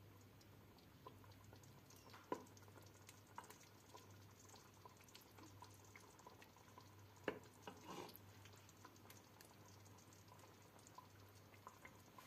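A wooden spoon ladles thick stew from a metal pot into a bowl: faint wet drips and scrapes, with two sharp knocks about two and seven seconds in.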